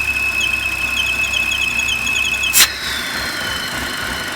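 BMW X5 engine idling with a steady high-pitched whistle and a fast pulsing squeak, about nine pulses a second, from a faulty crankcase ventilation valve. A sharp loud click comes about two and a half seconds in, after which the whistle stops and a fainter tone slides slowly downward.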